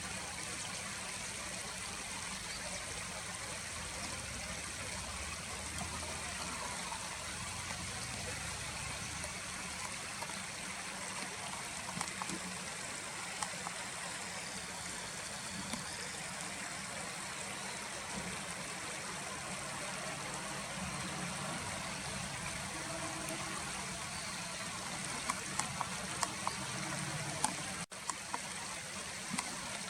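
Steady rush of a stream's running water, with a few faint ticks near the end.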